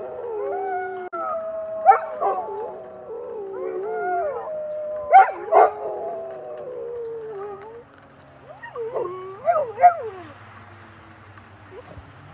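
Two golden retrievers howling together, long wavering howls broken by a few short sharp yips; the howling dies down about 8 seconds in and comes back briefly in a few shorter howls. A faint steady tone runs underneath and slowly falls in pitch near the end, in keeping with howling set off by a tornado siren.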